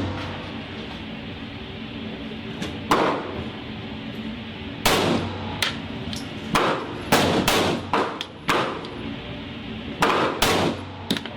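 9mm pistol shots, single shots fired irregularly a fraction of a second to a couple of seconds apart, each sharp crack followed by a brief ring. Fainter shots fall between the louder ones, over a low steady hum.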